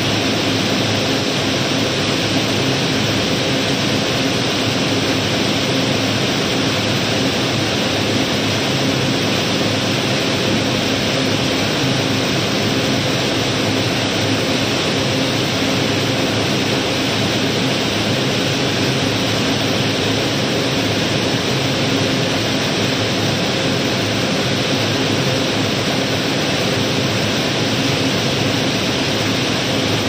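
Loose river gravel rattling and rushing continuously as a barge's cargo is unloaded, an even steady roar with a faint steady hum underneath.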